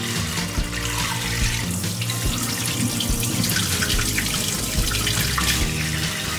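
Kitchen tap running into a bowl of rice as the grains are rinsed by hand, water splashing and spilling off into the sink.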